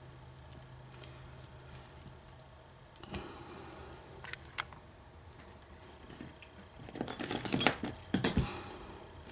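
Small metal clicks and rattling as a Harbor Freight padlock is handled and a thin shim is worked in beside its shackle: a few light clicks, then a busy burst of clinking and jiggling about seven to eight and a half seconds in.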